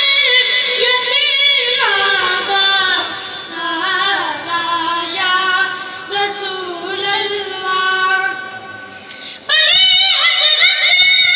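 Two boys singing a Punjabi naat into a microphone: long, ornamented vocal lines that glide up and down in pitch. The singing goes quieter through the middle and comes back loud about nine and a half seconds in.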